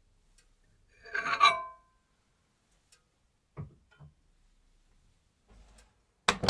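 Microwave oven door being handled: a rattling metal clatter with a brief ringing note about a second in, two light knocks around the middle, and a sharp latch click near the end.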